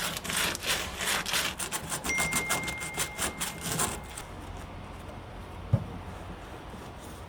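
Quick, repeated scraping strokes, several a second, for about four seconds, with a faint steady high whine under the second half of them; then quieter, with a single dull knock near the end.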